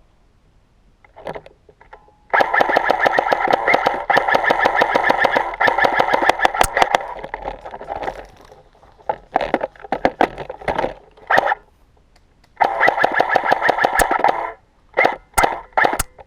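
Avalon MK18 electric airsoft rifle firing on full auto, a fast even rattle of shots. A long burst of about five seconds starts two seconds in, short bursts come around ten seconds, another burst of about two seconds follows near thirteen seconds, and a few quick bursts come near the end.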